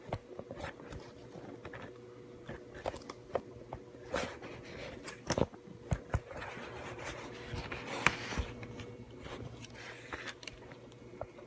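Handling noise from a phone held in the hand: scattered clicks, taps and rubbing over a faint steady hum.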